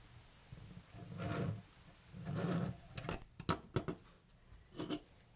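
Folding knives being handled: two short rubbing, sliding swishes, then a quick run of light clicks and taps and one more click near the end.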